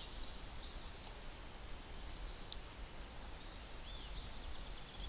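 Woodland ambience: a steady low hiss and rumble with a few short, high bird chirps scattered through, and one faint click about two and a half seconds in.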